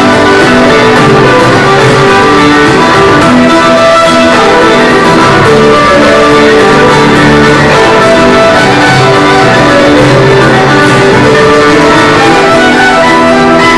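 Live band playing an instrumental passage: fiddle carrying held melody notes over strummed acoustic guitars.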